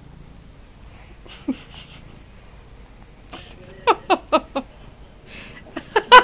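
A person laughing in short bursts: four quick laughs about four seconds in, then louder ones near the end.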